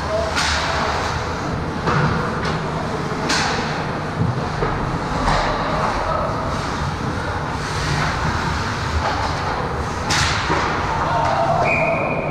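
Ice hockey play at the net: skates scraping the ice and several sharp knocks of sticks and puck, with players' voices. A referee's whistle blows briefly near the end, stopping play.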